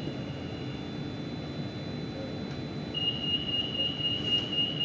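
Bangkok MRT Blue Line train standing at a station with a steady low rumble. About three seconds in, a loud, steady, high electronic tone sounds for about two seconds, the kind of warning tone given as the doors are about to close.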